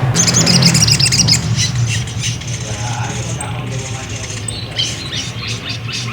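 Crimson sunbird (sogok ontong) giving rapid, high, thin chirps and twittering trills, loudest in the first second or so, over a steady low hum.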